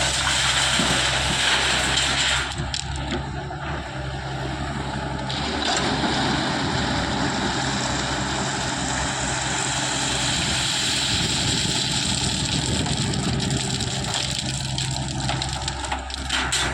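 Diesel engine of a backhoe loader working, running steadily under a broad noisy wash, with an abrupt change in the sound about two and a half seconds in.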